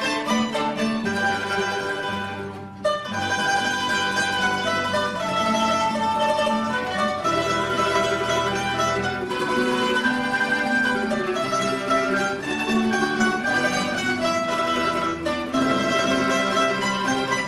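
Mandolin and guitar ensemble with double bass playing a melody in parts, continuous apart from a brief dip between phrases just under three seconds in.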